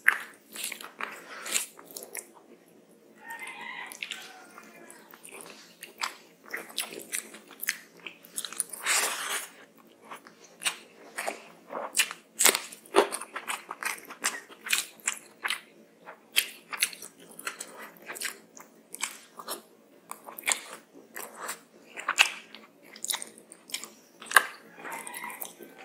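Close-miked chewing and biting of rice and curry, with many sharp wet mouth clicks. About twelve seconds in there is a crunchy bite into a raw green chili.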